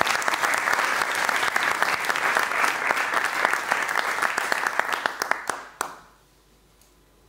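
Audience applauding, a dense patter of many hands clapping that fades out about six seconds in.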